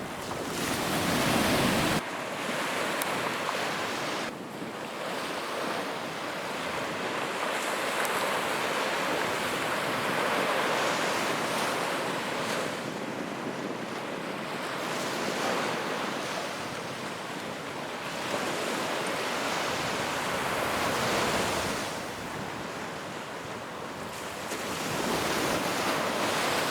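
Surf washing onto a sandy beach, swelling and fading every few seconds. There is wind rumble on the microphone in the first two seconds.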